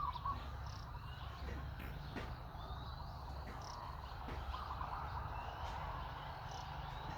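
Outdoor animal ambience: short rising chirps and squeaky calls scattered through, over a steady low rumble, with a few sharp clicks.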